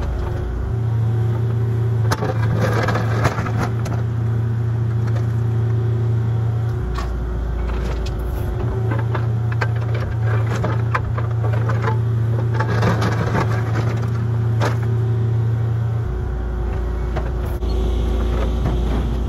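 Engine of a bucket-digging machine running steadily under load while it digs, its low note shifting a few times. Scattered scraping and cracking as the bucket cuts through soil and stones.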